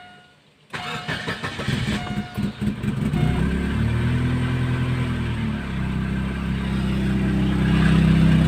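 A Chevrolet Optra's engine is cranked by the starter for about two seconds, catches, flares briefly and settles into a steady idle. A short dashboard chime beeps about once a second while it cranks, then stops.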